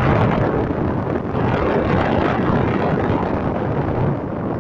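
Steady rumble of a bicycle ride through a road tunnel: wind on the microphone mixed with road and traffic noise echoing off the tunnel walls.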